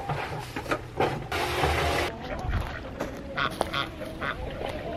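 Ducks quacking in a series of short calls over the second half. Before that, around one and a half seconds in, there is a loud rushing noise lasting under a second.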